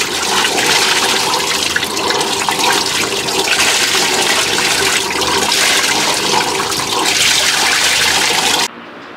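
Sailboat's inboard engine running just after being started with the key, its wet exhaust gushing cooling water in a loud, steady rushing splash. It cuts off suddenly near the end.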